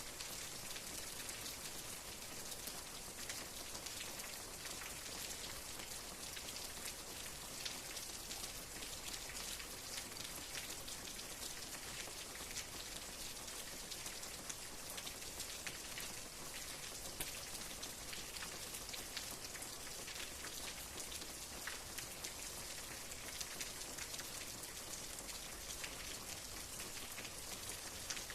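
Steady rain falling, with many individual drops ticking on a surface over an even hiss.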